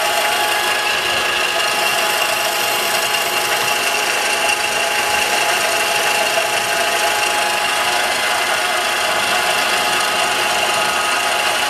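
A CNC milling machine running steadily, its spindle motor whining while a small end mill engraves a groove in a wooden board. The mill is loud enough to drown out the axis stepper motors.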